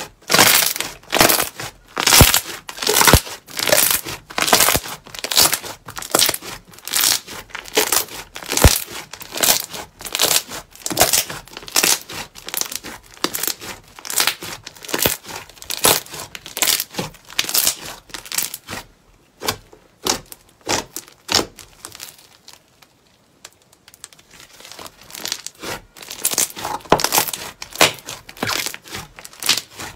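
Hands squeezing, pressing and pulling apart a large mound of white fluffy slime, which crackles and tears in quick bursts with each squeeze. The bursts thin out and go quieter for a few seconds about two-thirds through, then pick up again.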